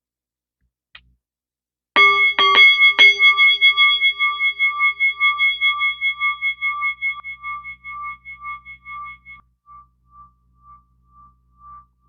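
A bell-like chime is struck four times in quick succession about two seconds in. It then rings out for several seconds, its tone wavering in slow pulses as it fades away.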